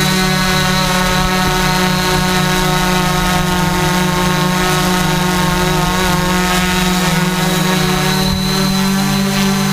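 Tarot 680 multirotor drone's electric motors and propellers, a steady loud buzzing hum with many overtones, heard while it hovers or flies.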